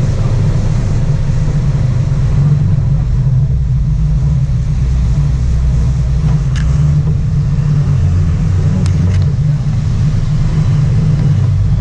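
Sport-fishing boat's inboard engines running steadily while trolling, a loud low rumble with a hiss of wind and churning wake over it.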